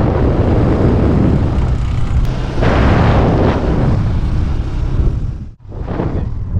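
Wind buffeting the microphone: a loud, rough rumble that swells in gusts, drops out for a moment about five and a half seconds in, then comes back.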